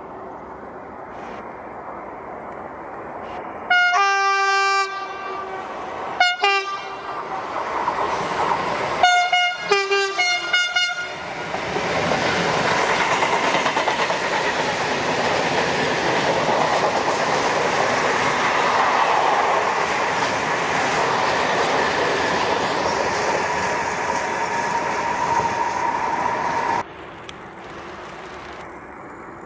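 Freight locomotive's horn: one long blast, a short one, then a quick series of short toots. A freight train's wagons then roll past, loud and steady, with clickety-clack from the rails. This stops suddenly, and a commuter electric train is heard approaching, much quieter.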